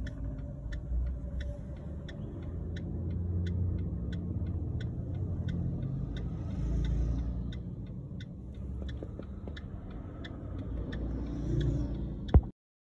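Low rumble of vehicle engines, swelling a little now and then, with a steady light ticking about three times a second. A sharp click comes near the end, just before the sound cuts off.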